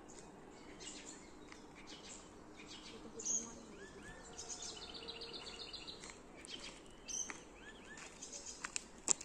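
Small birds chirping and singing faintly, with many short high calls and trills. A few sharp clicks come near the end.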